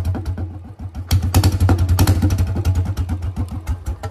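Royal Enfield Bullet 350's single-cylinder engine running with its silencer removed, open exhaust, giving a loud, rapid beat of exhaust pulses. The engine dips about a second in, then picks up again with a blip of the throttle.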